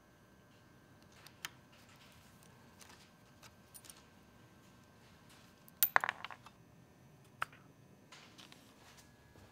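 Faint, scattered clicks and light taps of small steel socket-head cap screws being taken out of a CNC gantry block and laid on a wooden tray; the loudest is a quick cluster of clicks about six seconds in.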